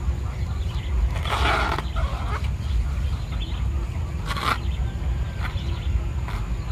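Steady rumble of wind on the microphone, with two short bursts about a second and a half and four and a half seconds in: a small knife cutting into a banana pseudostem.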